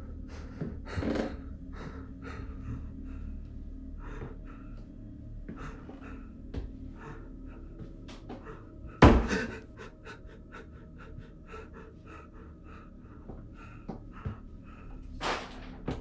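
A man panting heavily, short repeated breaths, with a single loud bang about nine seconds in.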